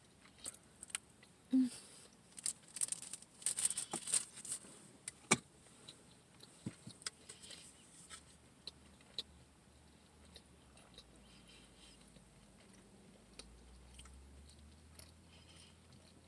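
Close-up eating and handling noises: chewing with scattered clicks and light rustles, busiest in the first half. After that it thins out to faint hum.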